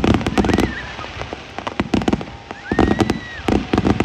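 Fireworks going off: clusters of rapid sharp pops and crackles in several bursts, with a thin whistling tone held for about a second near the middle.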